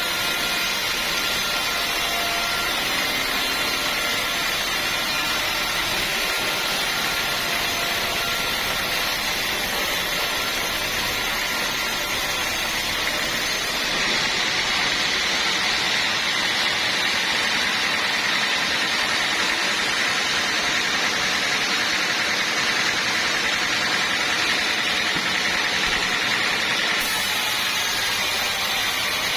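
Sawmill saw running steadily while cutting a teak log, a continuous mechanical noise. Its sound changes abruptly about halfway through and again near the end.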